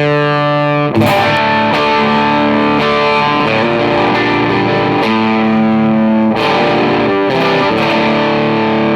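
Framus Idol Maker electric guitar played through an EarthQuaker Devices Bellows hot overdrive pedal: loud, distorted chords ring out, with a fresh chord struck about a second in and several more after.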